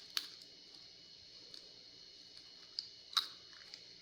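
A few light, sharp clicks and taps from handling a cracked egg and small dishes, the loudest about three seconds in.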